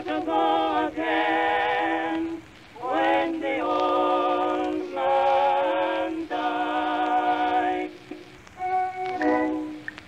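Music: a slow melody of long held notes with vibrato, each lasting one to two seconds, with a short break a little over two seconds in.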